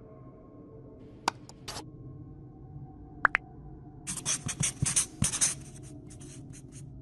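Scraping and rubbing of parts being worked by hand, with a few sharp clicks and a second or so of scraping about four seconds in, over a steady low hum.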